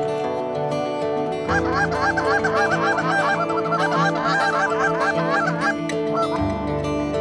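A flock of geese honking, many short overlapping calls for about four seconds, with a last call near the end, over soft guitar music.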